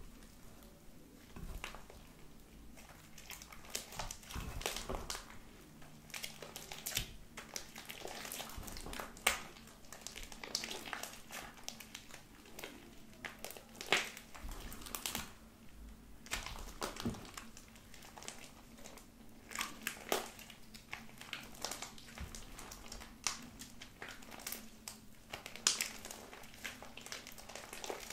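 Pink slime made with glue and body lotion being squished, kneaded and stretched by hand, giving irregular sticky crackles and wet clicks, a few louder pops among them.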